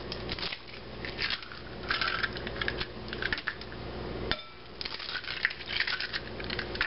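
Whole eggs being cracked on the rim of a glass mixing bowl and pulled apart: light crackling of shell with small clicks, and one sharp tap on the glass about four seconds in that rings briefly.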